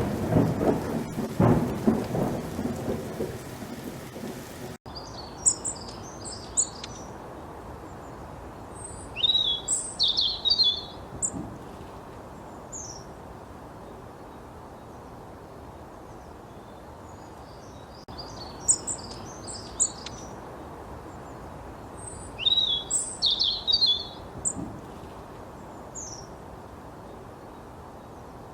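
For the first five seconds a loud low rumble with a hiss, which cuts off abruptly. Then sparrows chirp in quick high clusters: four bursts, several seconds apart, over a faint steady hiss.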